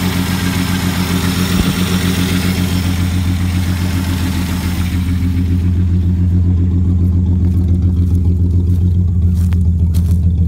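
1960 Plymouth Valiant's slant-six engine running steadily with a loud low drone; it needs a muffler. About halfway through the higher hiss fades, leaving the deep exhaust drone.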